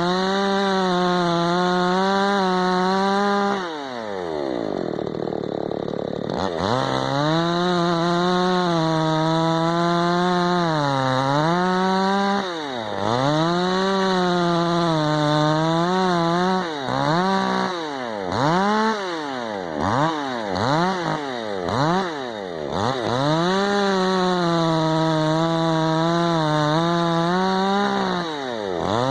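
Tekna CS 58 chainsaw's 54 cc two-stroke engine held at high revs, throttled down to a low idle and back up about four seconds in. Later it is blipped down and up several times in quick succession before running high and steady again.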